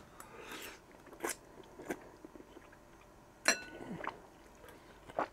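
A person slurping and chewing a mouthful of instant noodles eaten with a fork, with soft wet mouth sounds and a few sharp clicks. A little past halfway one click rings briefly, like the fork striking the glass bowl.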